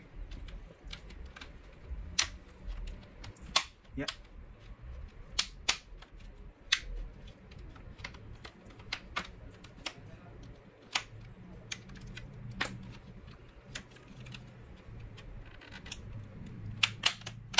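Plastic snap clips of a Samsung NP-S3520 laptop's case popping loose one by one as a flat pry tool is worked along the seam: sharp, irregular clicks, about fifteen, with a quick cluster near the end.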